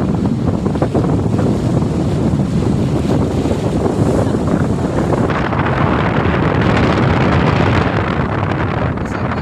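Strong gale wind buffeting the microphone over heavy surf. About five seconds in, a louder hiss of waves breaking and water rushing rises over the wind.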